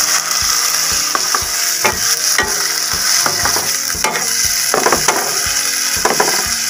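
Diced pork frying with onion, garlic and tomato in a nonstick pan: a steady sizzle, with a spatula scraping and clicking against the pan at irregular moments as the meat is stirred.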